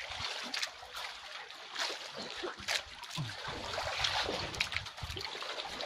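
A wet fishing net being hauled by hand into an outrigger boat, with seawater splashing and dripping off the mesh in irregular spatters.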